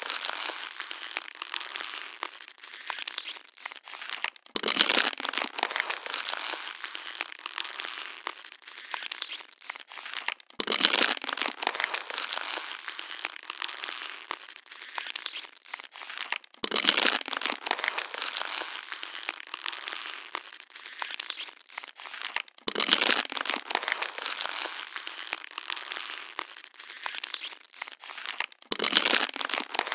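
Plastic water bottle being crushed, crackling and crinkling continuously, with a louder crunch about every six seconds.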